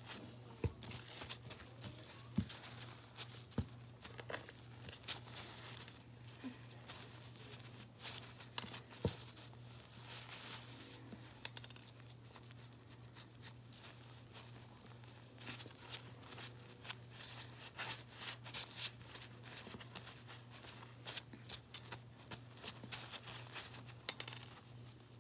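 Pink slime being squeezed and crushed in gloved hands, giving a dense, irregular run of crunchy crackles and clicks with a few louder snaps.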